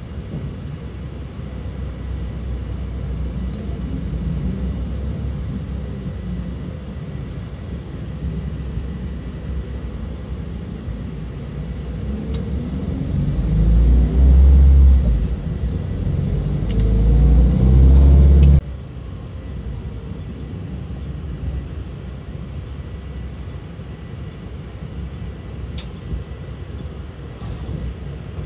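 Bus engine heard from inside the cabin, running steadily; about halfway through it speeds up, its pitch climbing as it gets much louder, then it cuts off suddenly about two-thirds of the way in and the quieter steady running returns. A few sharp clicks near the end.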